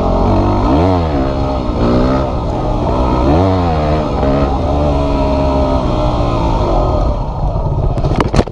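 Yamaha WR250 dirt bike engine revving up and back down twice, then running steadier. Near the end a quick clatter of sharp knocks, the loudest sound of all, as the bike crashes onto the gravel.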